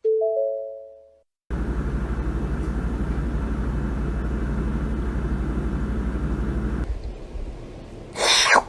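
A three-note chime rings and fades. Then a steady rumbling motor drone with a fast, even pulse runs for about five seconds and drops away. A loud sweeping sound comes near the end.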